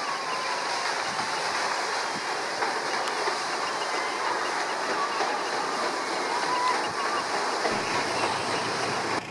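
Paddle steamer Waverley's side paddle wheels churning the water as she passes close by, a steady rushing splash together with her wash.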